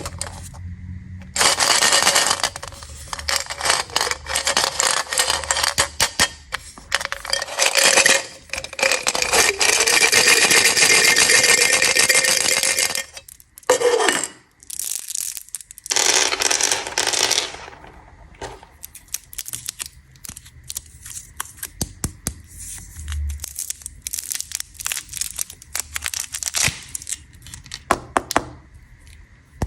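Candy packaging crinkling and rustling as it is handled and torn open, in a dense run of crackles for the first dozen seconds and again briefly, then scattered sharp clicks and taps of hard candies.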